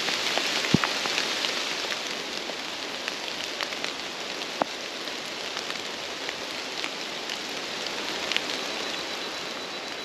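Heavy rain falling steadily, with scattered sharper drop taps through it.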